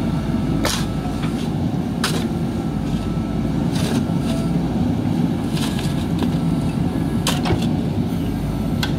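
JCB backhoe loader's diesel engine running steadily under load as the backhoe bucket works loose soil, with sharp clanks and knocks every second or two from the bucket and arm.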